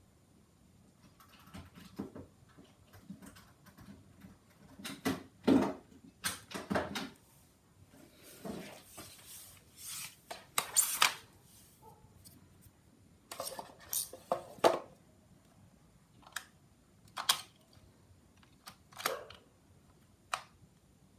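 Irregular clicks, light knocks and rustling of objects being handled and unpacked, with a few louder clatters midway.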